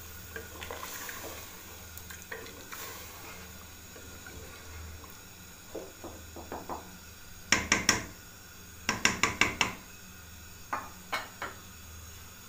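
Wooden spoon stirring a watery curry in an aluminium pot, with sharp knocks of the spoon against the pot: two about halfway through, a quick run of about five soon after, then a few single taps near the end.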